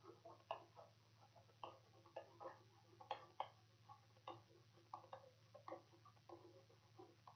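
Near silence with faint, irregular light ticks and taps of a stylus on a writing tablet as words are handwritten, over a faint low hum.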